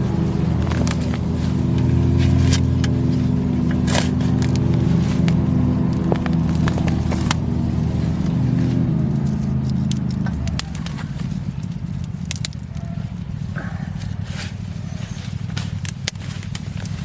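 An engine running steadily, dropping lower and quieter about ten seconds in, with crackling, scraping clicks over it.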